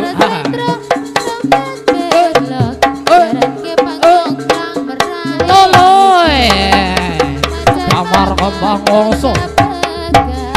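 Live Javanese folk-parade music: fast, dense hand-drum strokes over an ensemble playing steady notes. About halfway through, a melody line swells and slides in pitch as a deep bass tone comes in.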